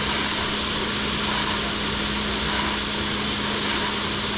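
Fire pump running under load during a flow test: a steady hum under a constant rushing noise from the water discharge.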